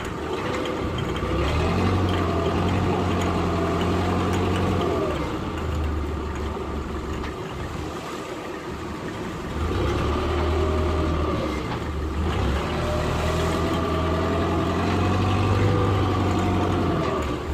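Fishing boat's engine running steadily, its pitch rising and falling back a few times as the engine speed changes.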